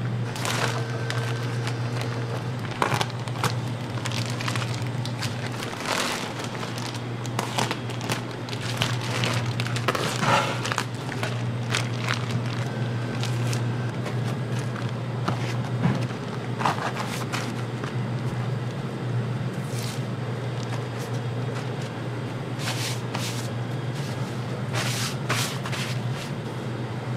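Vacuum-sealed plastic packs of raw beef crinkling and rustling as they are handled, and paper towels pressed down over the meat, with scattered sharp crackles. A steady low hum runs underneath.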